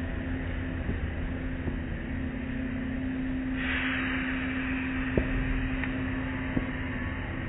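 Automatic tunnel car wash heard from inside the car: a steady hum of the wash machinery with water spraying and cloth strips sweeping over the windshield. The spray gets louder about three and a half seconds in, and two sharp knocks come in the second half.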